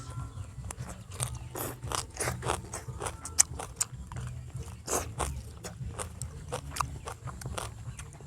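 Close-up eating sounds: chewing and crunching, with many sharp, irregular clicks over a steady low rumble.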